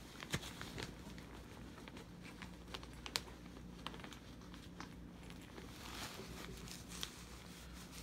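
Rustling and crinkling of coat fabric being handled and rummaged through, with scattered light clicks and taps.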